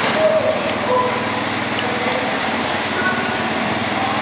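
Garden tractor's small gasoline engine running steadily, not yet under load, as it waits to start a pull.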